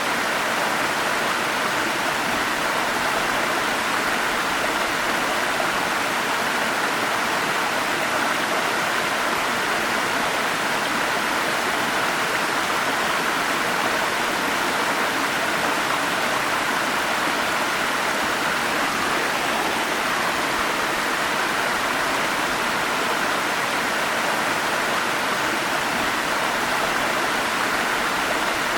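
Forest stream rushing over small falls, a steady, even wash of splashing water with no breaks.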